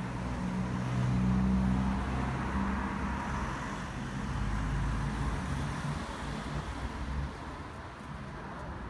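Street traffic: a car's engine running, with a low steady hum over road noise, loudest in the first few seconds and dropping away at about seven seconds.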